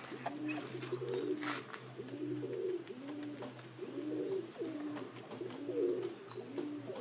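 Domestic pigeons cooing: low, rolling coos repeated over and over, about one a second.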